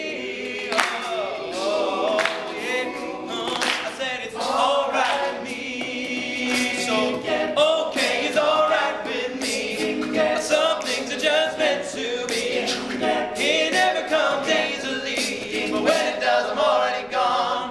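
Male a cappella group singing an up-tempo pop song in close harmony, with sharp percussive hits keeping the beat.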